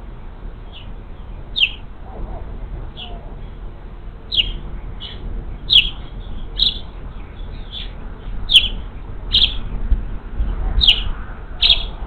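A bird repeatedly giving short, high chirps, roughly one a second, over a steady low rumble.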